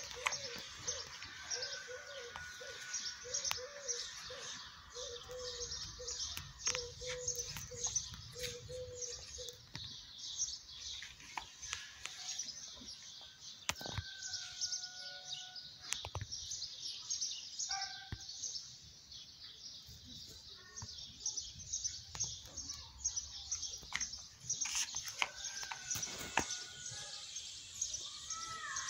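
Many small birds chirping continuously in a dense high chatter. A lower note repeats about once a second through roughly the first third, and a few short whistled calls come later.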